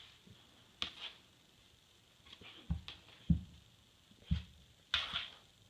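Boxer dog's paws and muzzle knocking against tile while it paws at a moth on the wall: a few short thuds and clicks at irregular intervals, the loudest a little past three seconds in.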